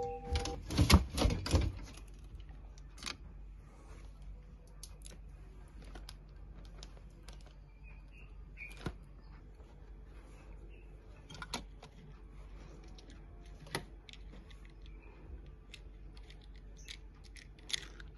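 Small hard clicks and taps of plastic toys being handled in a glass display cabinet, with a louder rattling cluster about a second in and single clicks scattered after.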